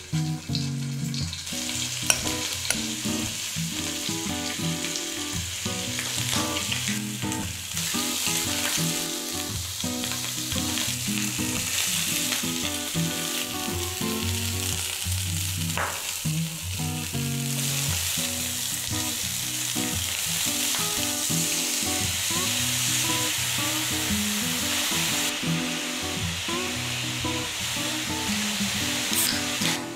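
Chicken drumsticks sizzling in hot oil in a frying pan, with the spatula scraping and stirring them in the pan near the end.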